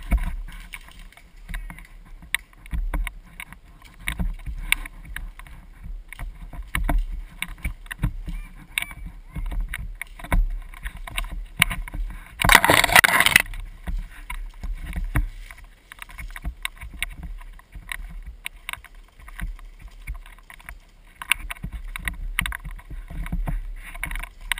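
Handling noise on an airsoft rifle's mounted camera: irregular knocks, thumps and rubbing as the gun is carried and moved, over a low rumble. About halfway through comes a loud rush of noise lasting about a second.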